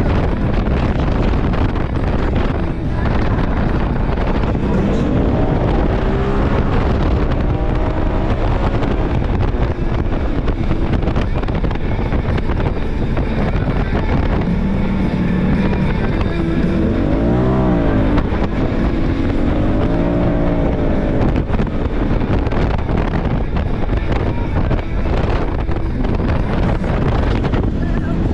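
Side-by-side UTV engine running while driving over sand dunes, its pitch rising and falling with the throttle several times, over a steady rush of wind and driving noise.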